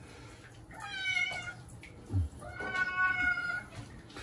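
Sphynx cat meowing twice while being bathed, complaining at the bath. The second meow is longer and holds a steady pitch. A brief low thud falls between the two meows.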